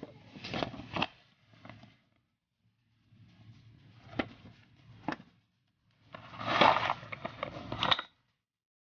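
Unboxing handling noise: a paper instruction leaflet rustling as it is unfolded and turned, with a few sharp clicks, then a louder crinkly stretch of plastic packaging and charging cable being handled that stops about eight seconds in.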